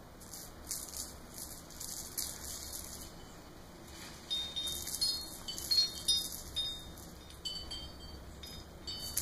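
Spring-mounted ball toy on a cat scratching post rattling and jingling in quick, irregular bursts as a cat bats and grabs at it, busiest in the second half.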